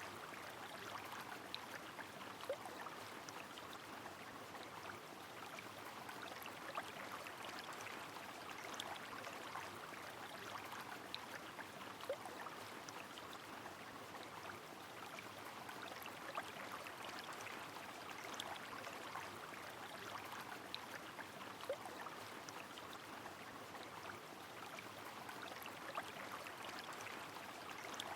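Rain falling on a flowing river: a soft, steady rush of water. Small drop ticks are scattered through it, with a louder drip every few seconds.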